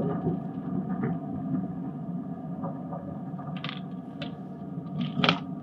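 Steady low engine and road hum heard inside a car's cabin as it drives slowly, with a few short faint ticks and rustles, the loudest a little after five seconds in.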